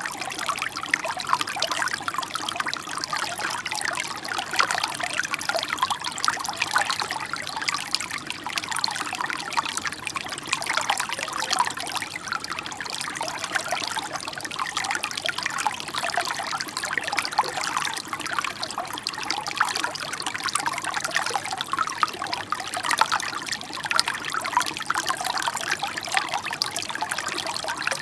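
Shallow brook babbling over its bed, a steady, even run of small gurgles and trickles.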